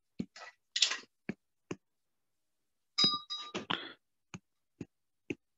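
Scattered short clicks and light knocks, with a brief ringing clink about three seconds in.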